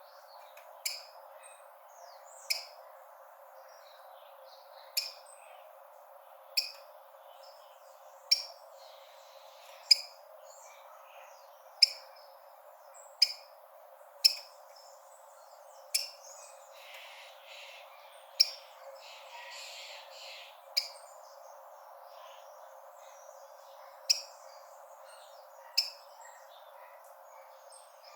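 Rufous-collared sparrow (tico-tico) giving short, sharp chip notes one at a time, one every one to three seconds, over a steady hiss.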